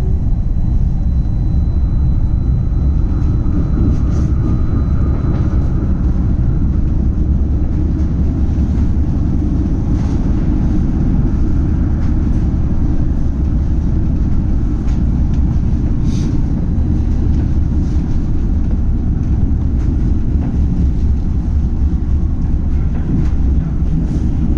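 Odense light-rail tram running along its track, a steady low rumble with faint scattered ticks and rattles.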